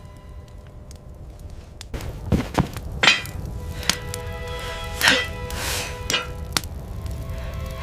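Tense background music with a series of sharp hits and swooshes, about eight strikes at uneven spacing that start about two seconds in.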